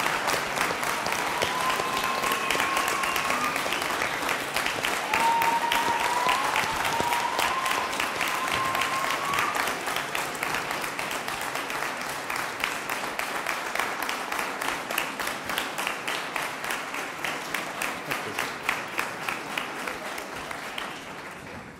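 Large audience applauding, with a few long rising calls over the clapping in the first half. The applause thins into separate claps and fades out near the end.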